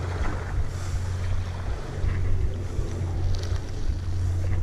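Wind buffeting the microphone in a steady low rumble, with the sea washing against the rocks.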